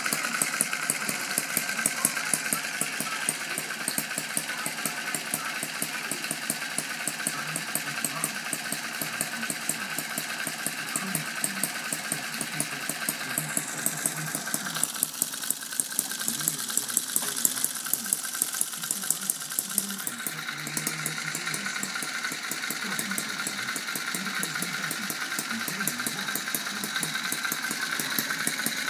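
Bob Shores-designed 'Little Angel' model hit-and-miss engine, half-inch bore, running steadily as a fast, even run of firing strokes. Its governor is not connected, so it fires continuously with no hit-and-miss cycling.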